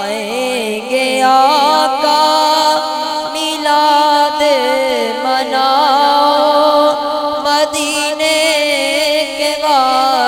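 Unaccompanied naat singing: a male voice holds long, wavering, melismatic notes without clear words over a steady hummed vocal drone.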